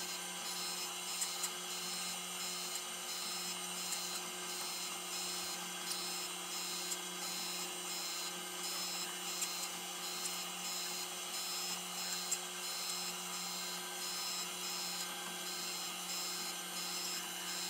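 Taft-Peirce surface grinder grinding Bridgeport vise jaws on a light finishing pass: a steady motor hum under a high grinding hiss that rises and falls in a regular rhythm, with a few sharp ticks.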